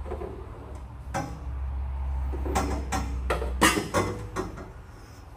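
Bent steel roll-cage tubing clanking and knocking against the car's bare body shell and the other cage bars as a cage section is worked into place, with a cluster of sharp metallic knocks in the second half over a steady low hum.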